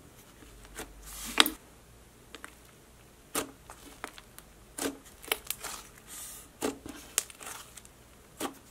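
Thick black clay-butter slime being pressed, poked and stretched by hand, giving scattered sharp clicks and pops, about seven over the stretch.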